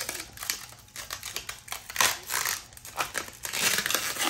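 Plastic packaging wrap crinkling and rustling as it is handled and pulled off, in quick irregular crackles.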